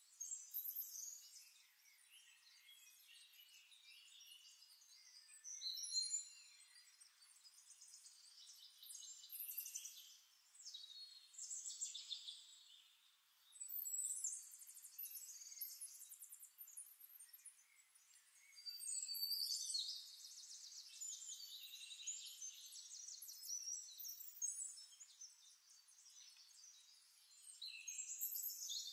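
Faint high-pitched chirps and rapid trills in irregular phrases that come and go, with nothing in the low range.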